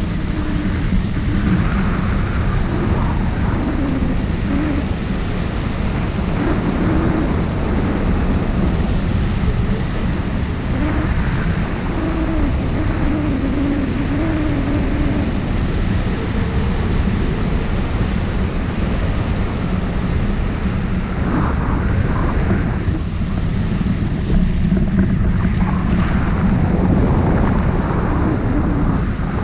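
Airflow of a hang glider in flight buffeting the wing-mounted camera's microphone: a loud, steady rush of wind noise, with a faint wavering tone underneath in the first half.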